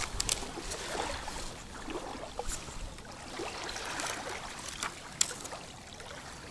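Small waves lapping at the shore under a light wind, a steady wash of water noise, with a few faint sharp clicks from handling the bait and tackle about a quarter second, two and a half and five seconds in.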